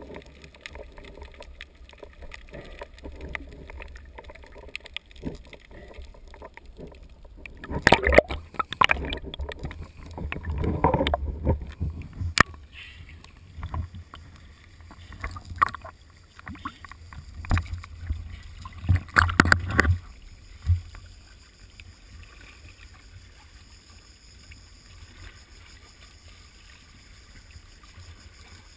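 Water splashing and sloshing around a GoPro in its waterproof housing as a swimmer breaks the surface and moves in at the rocky shore, heard muffled through the housing. The splashes come in irregular bunches from about 8 to 20 seconds in, then give way to a faint steady hiss.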